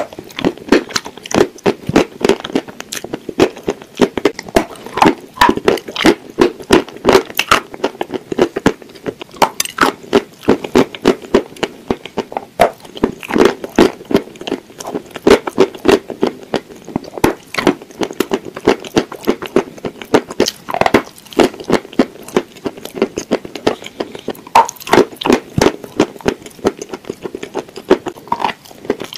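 Close-up crunching and chewing as a person bites into hard, dry clay pieces coated in a creamy paste: crisp cracks coming several times a second without a break.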